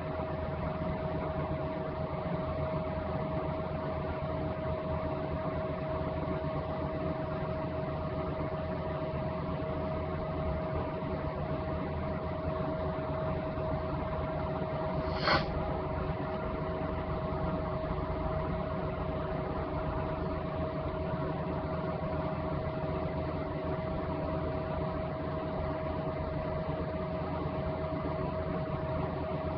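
A steady droning hum with a constant mid-pitched tone running under it. A single sharp click comes about halfway through.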